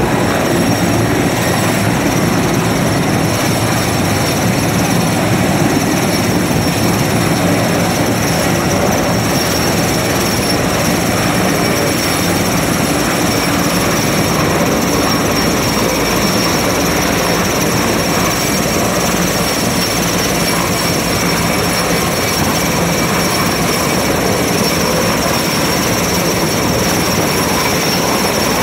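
Sikorsky S-64 Skycrane heavy-lift helicopter hovering low overhead during a crane lift: a loud, steady rotor and turbine din with a thin high whine running through it.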